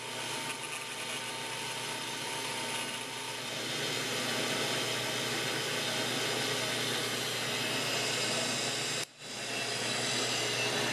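Atlas 10-450 tool post grinder running on its high speed, its small wheel grinding the inside taper of an MT5-to-5C collet adapter turning on a metal lathe, taking a half-thousandth cut: a steady hiss with a faint steady tone. The sound drops out for an instant about nine seconds in, then carries on.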